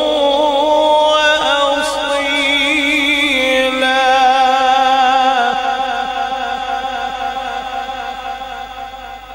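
A male qari's melodic Quran recitation (tilawat) through a microphone: one long held, wavering, ornamented vocal line with no clear word breaks. It fades away over the last few seconds.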